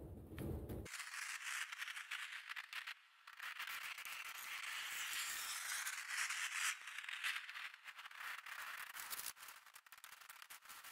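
Dense crackling rustle with many small clicks: a nylon dome tent and its poles being handled as the tent is taken down. The rustle sets in about a second in and eases off near the end.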